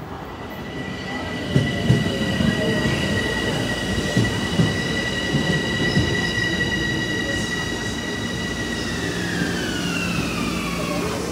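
Metro-North M7A electric train pulling in and braking to a stop: a string of knocks as the wheels pass over rail joints, under a high whine in several tones that glides down in pitch as the train slows, near the end.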